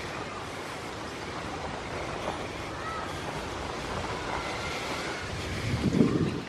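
Wind rushing over the camera microphone, a steady buffeting noise, with a louder rumble about six seconds in.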